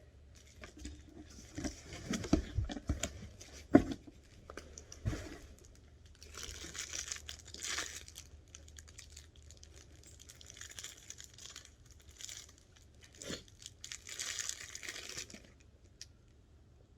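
Packing material being torn and crumpled by hand as an item is unwrapped from a shipping box, in uneven bursts of rustling, with a few dull knocks about two to five seconds in.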